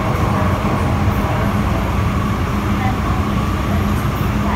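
MTR Kwun Tong line M-Train electric multiple unit running at speed, heard from inside the carriage: a loud, steady rumble of wheels on rail with a constant low hum.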